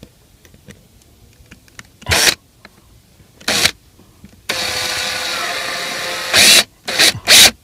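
Makita 9.6 V cordless drill driving a screw through an aluminium footrest pedal plate into the car's plastic floor. It starts slowly so the screw can bite: two short pulses of the trigger, then a steady run of nearly two seconds, then three quick pulses near the end.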